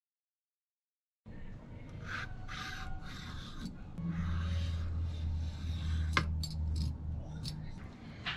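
Vegetable peeler scraping strips of skin off cucumbers on a plastic cutting board, several short rasping strokes starting about a second in. A low steady hum joins about halfway through, with a single sharp click.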